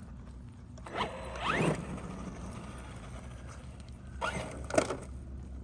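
Brushless electric motor and gears of a Traxxas Sledge RC monster truck whining up in pitch in two short bursts of throttle, about a second in and again about four seconds in.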